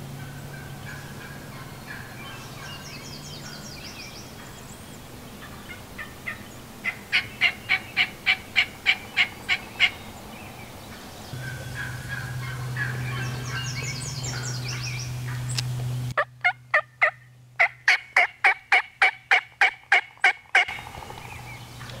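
Turkey yelping in two long runs of evenly spaced notes, about four a second, a dozen or more notes in each run; the second run, near the end, is the louder.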